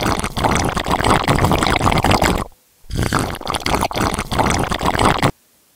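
Spiced broth at a rolling boil in a stainless steel pot, bubbling with a dense crackle of pops. It breaks off briefly about two and a half seconds in, resumes, and cuts off abruptly near the end.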